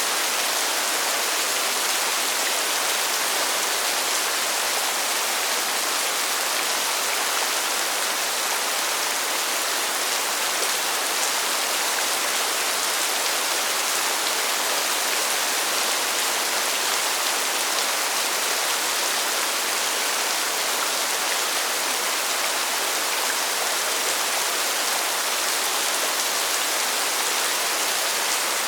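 Steady rain falling: an even hiss with no single drops, thunder or other sounds standing out.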